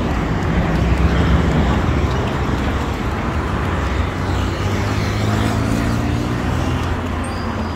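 Street traffic noise: a steady low engine hum, with an engine note rising in pitch around the middle as a vehicle speeds up.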